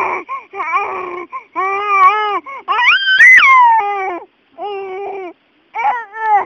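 Baby vocalizing loudly in a string of short, sing-song calls with brief gaps between them, with a higher, rising squeal about three seconds in.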